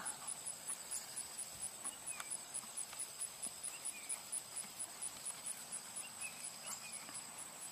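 Insects chirping in a steady, fast, high pulse, with the soft, regular hoofbeats of a horse trotting on arena sand and a few faint bird chirps.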